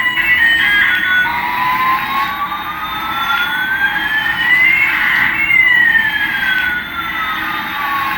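Electronic toy sound effect: two synthetic tones glide slowly in opposite directions, one rising and one falling, crossing about halfway through, over a steady hiss. A short stepped beeping melody ends about a second in.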